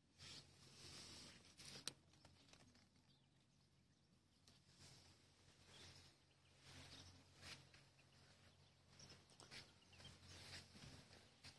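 Near silence: faint irregular rustling and crackling of handling noise, with a sharper click just under two seconds in, over a low steady hum.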